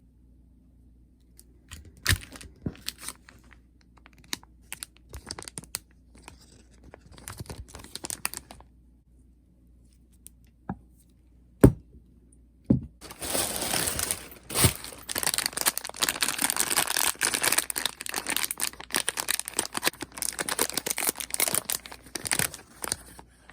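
Packaging being handled and torn open by hand: scattered rustles and clicks, two sharp snaps about twelve seconds in, then continuous tearing and crinkling over the last ten seconds.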